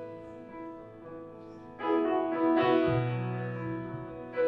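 Piano playing sustained chords in an instrumental gap of a worship song, with a new chord struck about two seconds in and a low bass note entering soon after.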